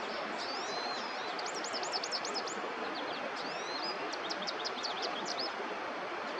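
Songbirds singing: repeated runs of quick, high, sharp notes and short slurred whistles, over a steady rushing background noise.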